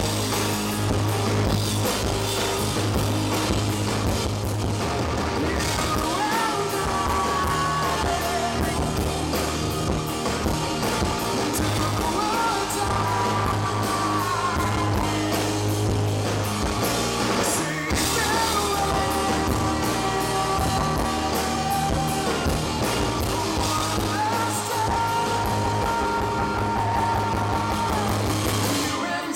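Live rock band: a male lead vocal sung over amplified electric guitars and a drum kit.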